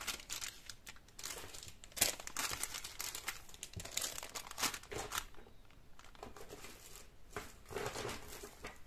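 Clear plastic packets of aluminium craft wire crinkling and rustling as they are handled and laid down one on another, in irregular bursts with a quieter pause about halfway through.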